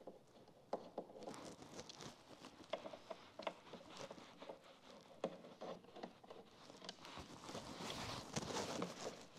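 Faint scattered clicks and light scrapes of a hand screwdriver turning out the T30 Torx bolts of a motorcycle seat bracket. Near the end comes a denser rustle and rubbing as the bracket is handled.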